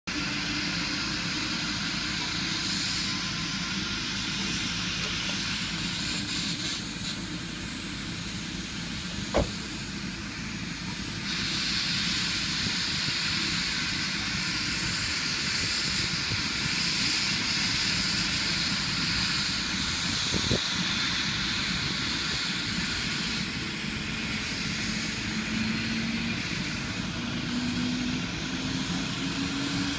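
Police helicopter running on the ground, a steady turbine hiss over the low rotor noise, its pitch rising over the last few seconds as it powers up to lift off. Two sharp knocks, about nine and twenty seconds in.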